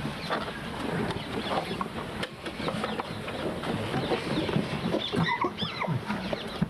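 Birds chirping and calling, with a quick run of chirps about five seconds in, over the low murmur and shuffling of a gathered crowd.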